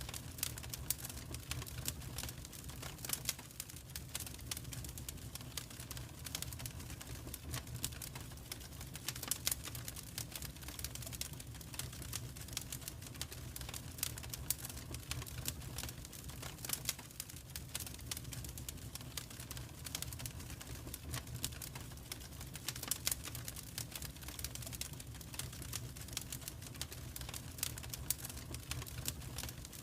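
Wood fire in a fireplace crackling and popping, with dense irregular snaps over a steady low rumble.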